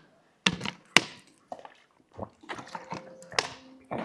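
Drinking from a thin plastic water bottle: the plastic gives two sharp crackles about half a second and a second in, followed by softer handling noises as the bottle is put back down.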